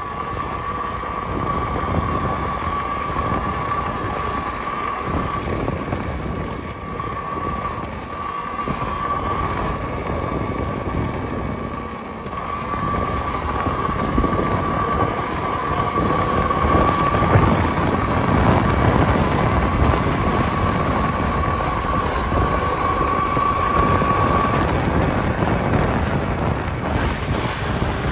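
Talaria electric dirt bike ridden along a dirt and leaf-strewn path: a steady rumble of tyres and wind on the microphone, with a steady high whine that stops near the end.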